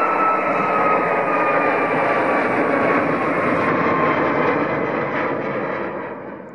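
Jet engines of a Boeing 737 MAX 8 at take-off thrust as it climbs away: loud rushing jet noise with a high whine that slowly falls in pitch, fading away over the last second or so.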